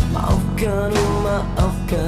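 Band music from a song recording: a pitched melody line over sustained bass and guitar, with a regular drum beat.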